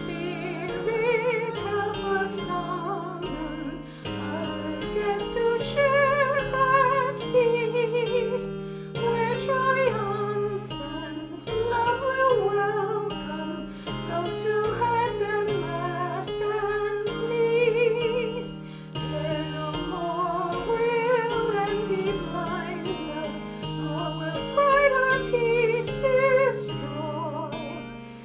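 A solo voice singing a slow melody with wide vibrato over piano accompaniment.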